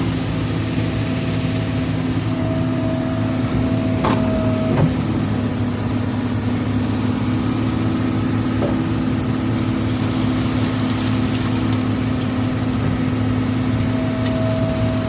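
Excavator's diesel engine running steadily while it digs, with a thin whine that comes and goes and a couple of short knocks about four seconds in.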